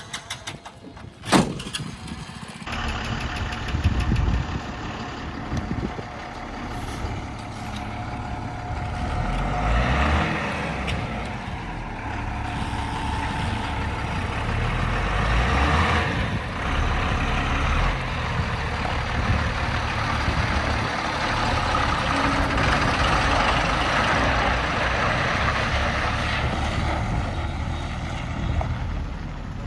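A sharp clank about a second in, then a heavy diesel engine running hard, its noise building over the next several seconds and staying loud.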